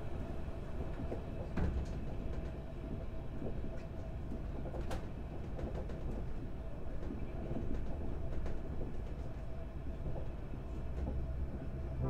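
Passenger train running along the track, heard from aboard: a steady low rumble with scattered sharp clicks and knocks, the sharpest about five seconds in.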